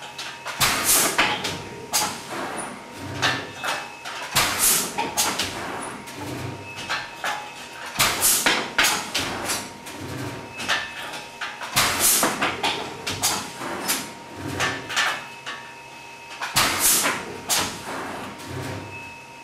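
Tronrud TC2 digital jacquard hand loom being woven on: sharp wooden knocks and clacks in a cycle that repeats about every four seconds as the shed changes, a shuttle is passed and the beater is pulled against the cloth. A faint steady tone runs underneath.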